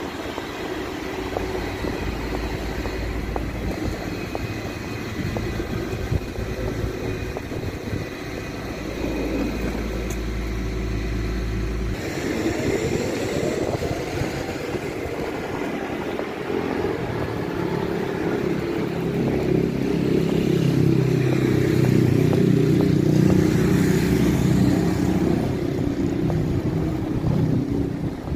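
City street traffic: motor vehicles running and passing. The sound changes abruptly about halfway through, then a rising engine note, and a vehicle engine grows louder to its peak about two-thirds of the way through before easing off.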